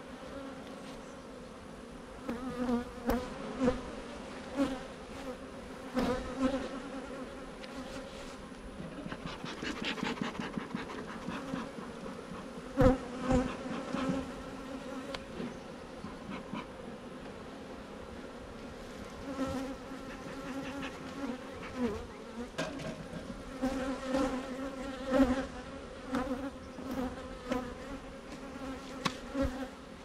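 Honeybee colony buzzing around opened hive boxes: a steady wavering hum, swelling as individual bees fly close past. A few sharp knocks stand out along the way.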